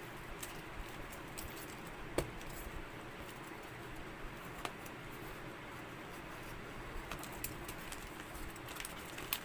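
A paper envelope being slit and torn open with a snap-off box cutter: light rustling with scattered sharp clicks and taps, the sharpest about two seconds in.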